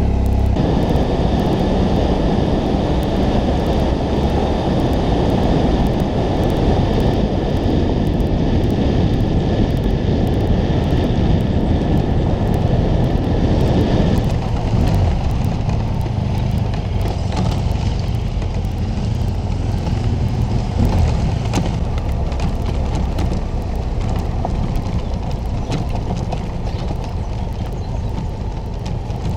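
Adventure motorcycle engine running under way on a dirt road, heard from the camera on the bike, a dense steady rumble. A high whine in the mix stops about halfway through.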